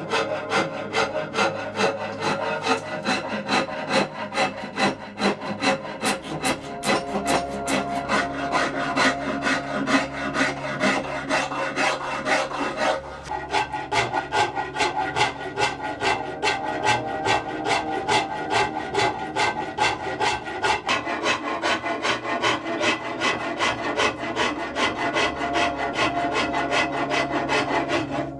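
Rhythmic hand-tool strokes rasping down wood, about two strokes a second: an Osage orange bow stave being shaped by hand.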